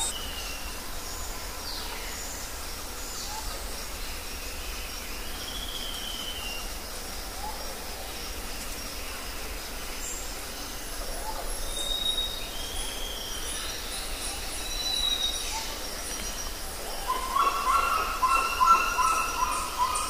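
Rainforest soundscape: several birds whistle and call over a steady background hiss, with high rapid ticking in the second half. A louder run of repeated calls starts near the end.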